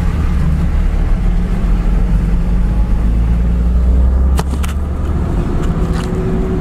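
Steady low rumble of a vehicle driving slowly, engine and road noise heard from inside the cab, easing a little about two-thirds through. A few sharp clicks or rattles come near the end.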